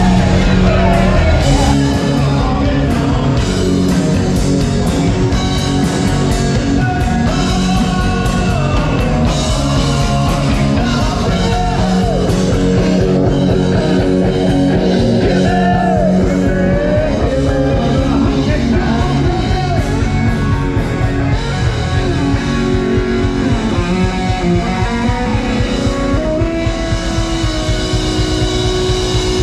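Rock song with a singing voice, guitar and a steady drum beat.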